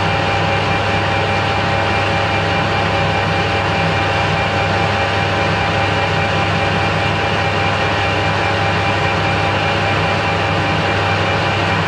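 Metal lathe running steadily under power, turning down a steel bar: an even hum from the motor and gearing with steady whining tones over a noisy hiss.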